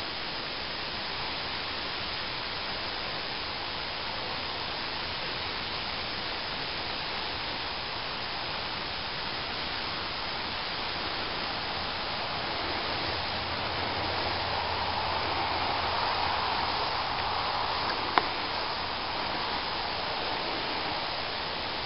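Steady, even hiss that swells slightly in the middle, with one sharp click near the end.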